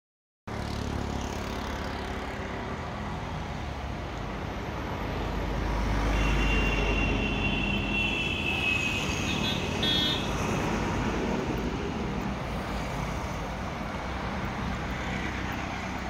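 Road traffic on a city street heard from the footpath: a steady wash of passing vehicles that cuts in after a moment of silence, with a heavier vehicle's low rumble swelling about five to eight seconds in and a short high-pitched sound near ten seconds in.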